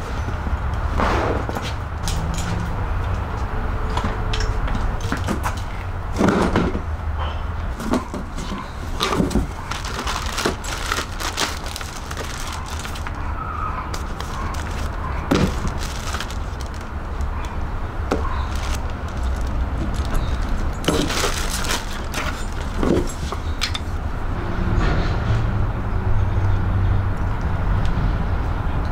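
Unboxing handling noises: a cardboard box, plastic bags and a floor mat rustle and knock, with scattered short clicks and thumps over a steady low rumble.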